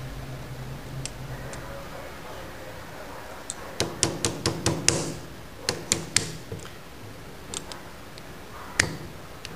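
Side cutters gripping and working a cotter pin out of the end of a Triumph Spitfire rocker shaft: a quick run of sharp metal clicks and snaps through the middle, then a few fainter ones and one loud click near the end.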